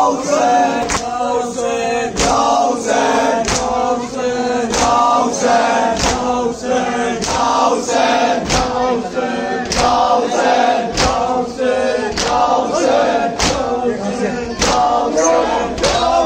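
A group of men chanting a nauha (Muharram lament) in unison, with a steady beat of hands striking chests in matam, about two strikes a second.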